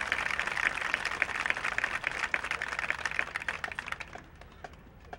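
Audience applauding, dense clapping that thins out and fades about four seconds in to a few scattered claps.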